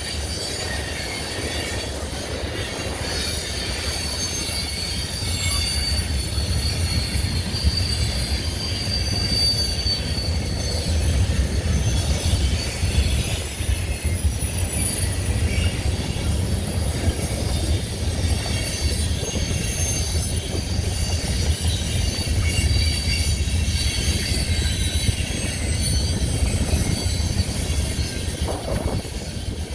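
A CN train's cars rolling past on steel wheels: a steady low rumble with thin, high-pitched wheel squeal drifting in pitch above it.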